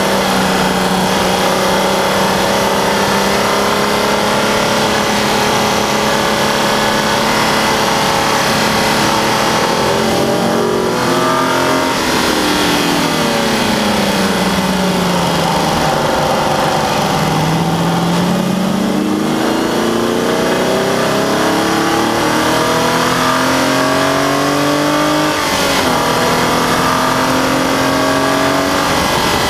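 Nissan 350Z's 3.5-litre V6 running hard at speed on a track. Its pitch holds steady at first, falls smoothly for several seconds as the car slows, then climbs steadily again, with a brief dip near the end. A constant rush of wind and tyre noise runs underneath.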